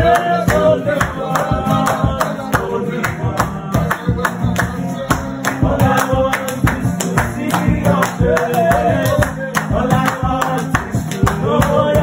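Men singing a worship song in a raw, live way over musical backing with a steady, regular beat.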